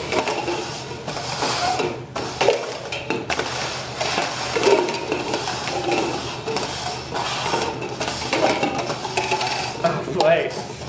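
Red plastic cups slid quickly around a wooden tabletop, a continuous scraping and rustling with small knocks as the cups bump into each other.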